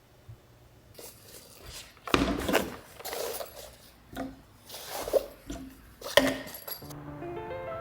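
Objects being handled: irregular rubbing and scraping with several sharp knocks and clatters. Near the end a chiming music tune starts.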